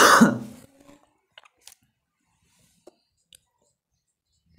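A loud, short rush of noise at the very start, then a marker pen writing on a whiteboard: a few faint short scratches and ticks spread over the next couple of seconds.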